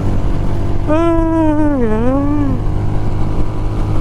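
Motorcycle riding at speed on a windy road, a steady engine drone mixed with heavy wind rushing over the microphone. About a second in, a single long wavering tone dips in pitch and rises again for about a second and a half.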